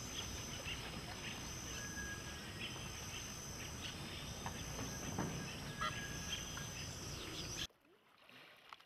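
River shallows with people wading and splashing, scattered splashes over a steady outdoor hiss, a high steady whine, and two short whistled bird notes. Near the end the sound drops suddenly much quieter.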